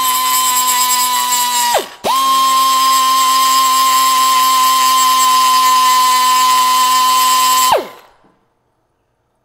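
Pneumatic die grinder running with a steady high whine while grinding the internal weld seam out of the end of a seamed tube. It winds down about two seconds in, is triggered again at once, and spins down to a stop near the end.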